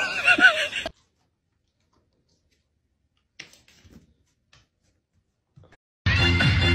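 A goat's wavering bleat that breaks off about a second in, then a few faint clicks, and electronic music with a steady beat coming in near the end.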